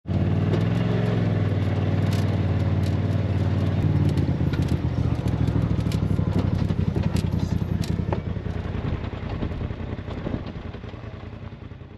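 Polaris RZR side-by-side running under way on a dirt trail, heard from inside the open cab: a steady engine drone with many scattered clicks and rattles. It fades out over the last few seconds.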